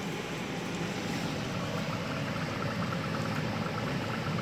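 Spring rolls frying in hot oil in a frying pan, the oil sizzling and crackling steadily over medium-high heat as the wrappers crisp, over a steady low mechanical hum.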